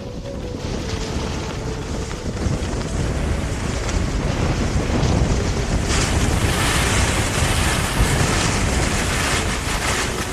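Wind buffeting the microphone, with a rumbling hiss that grows louder and brighter about six seconds in.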